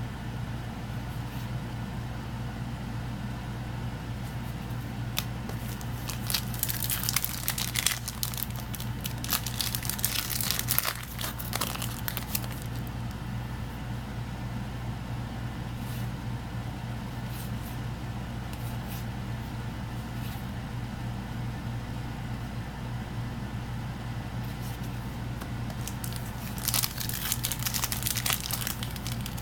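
Foil trading-card booster pack wrappers crinkling and tearing open, in two spells of handling, over a steady low hum.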